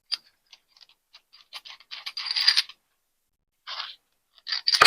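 Metal parts and hardware being handled: a run of light clicks, two short scraping rustles, then a sharp clank near the end, the loudest sound.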